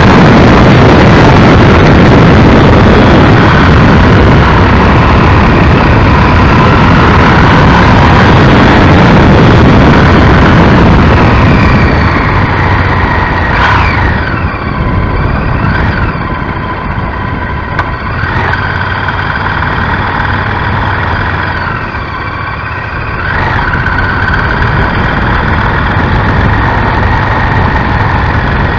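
Honda Varadero XL1000 motorcycle's V-twin engine running on the move, with loud wind rushing over the microphone for about the first twelve seconds. After that, at lower speed, the engine note is heard more plainly, rising and falling several times as the rider works the throttle.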